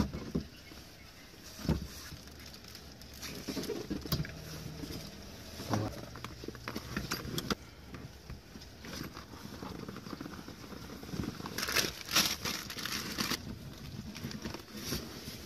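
Rightline Gear side storage bag being handled and strapped to a Jeep's roll bar: scattered rustling of the bag's coated fabric, with light knocks and clicks from straps and clips. A denser run of scraping rustle comes about twelve seconds in.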